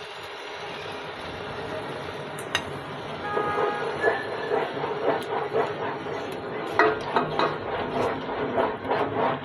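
Frying vegetables in sauce sizzling in a pot as beaten egg goes in. From about three seconds in, a wooden spoon stirs and scrapes against the pot at about two or three strokes a second.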